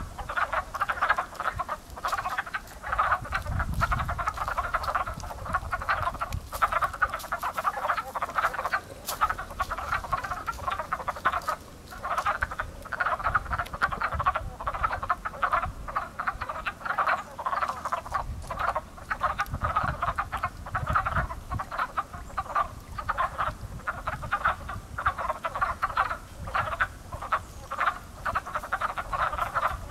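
A spring chorus of many pond frogs calling at once: a dense, unbroken mass of short, overlapping croaks, like crows cawing.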